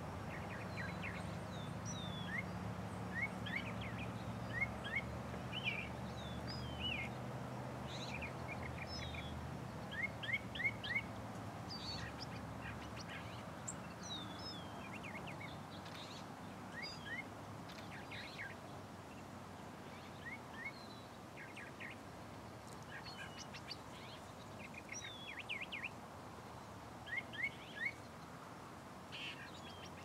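Wild songbirds chirping: clusters of short, quick notes, many of them rising, repeated every second or two. A faint low hum sits under them for about the first ten seconds, then fades.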